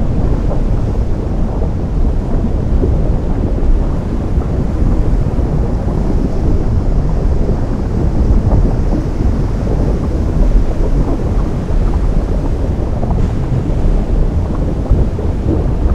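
Low, continuous rumble of ocean surf where the sea meets lava, swelling and easing slightly.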